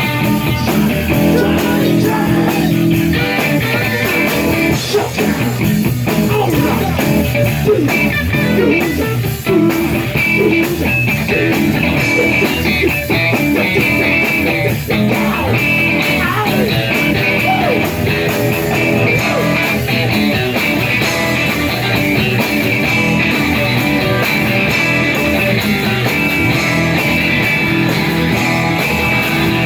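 Live rock and roll band playing an instrumental passage, with guitar to the fore.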